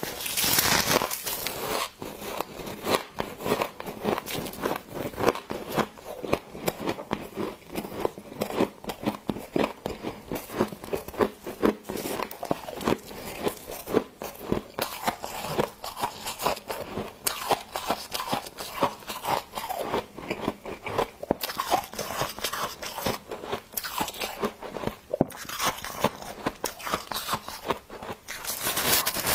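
Close-miked biting and chewing of freezer frost: dense, irregular icy crunches throughout, with louder bites at the start and near the end.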